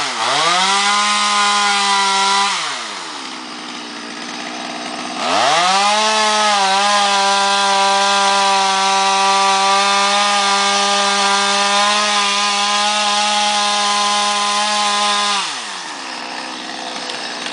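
Stihl MS 200 two-stroke chainsaw run at full throttle, cutting through a pine trunk near the ground: a short run of about two and a half seconds, a drop to idle, then a long steady cut of about ten seconds before it falls back to idle.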